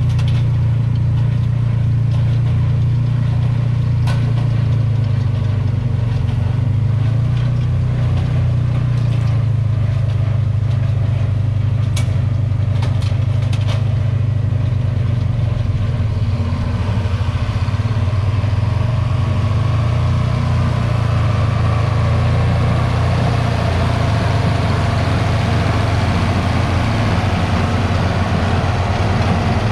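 John Deere 4430 tractor's six-cylinder diesel engine running steadily at working speed while baling, with a few sharp clicks in the first half and a harsher, noisier clatter building from about halfway through.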